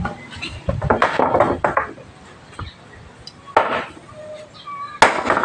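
A machete chopping firewood: a handful of irregular chops of the blade biting into wood, some with a short metallic clink, the loudest near the end.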